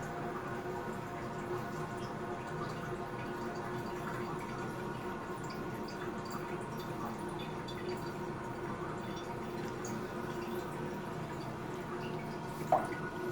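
Toilet tank refilling after a flapper replacement: water runs in through the fill valve with a steady hiss and faint whistling tones. A short knock comes near the end.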